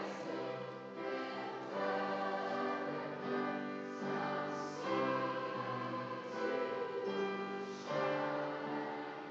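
A school chorus singing, several voices in harmony holding notes that change about once a second.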